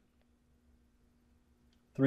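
Near silence: faint room tone with a faint steady low hum and a few tiny clicks.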